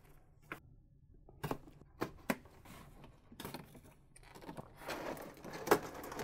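Cardboard box of a boxed figure being opened by hand: a few light clicks and taps, then cardboard sliding and scraping as the inner box is drawn out of its sleeve, with crinkling of the clear plastic tray, louder near the end.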